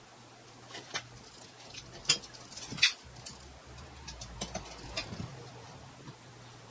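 Scattered clicks and light metal knocks as the parts of a cast iron treadle sewing machine base and hand tools are handled and fitted together, the sharpest knock a little under three seconds in, over a low steady hum.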